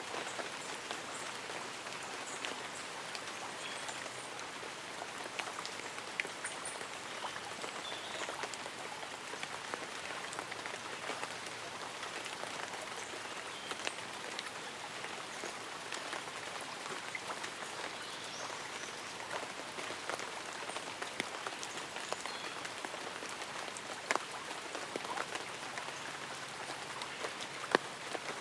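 Light rain falling on tree leaves and an umbrella: an even hiss scattered with single drop ticks, with a couple of louder drops near the end.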